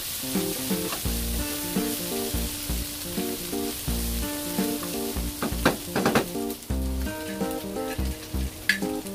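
Pork belly and aromatics sizzling as they sauté in a nonstick wok, a wooden spatula stirring through them, with a short run of scrapes about five and a half seconds in. A light, bouncy background tune with a plucked melody and bass plays along.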